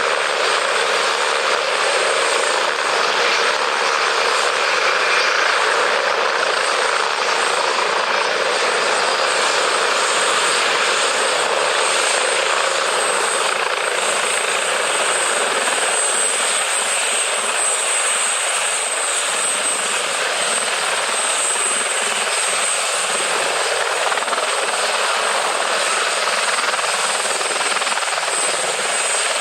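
Steady aircraft engine noise: an even, unbroken rush with a thin high-pitched whine over it.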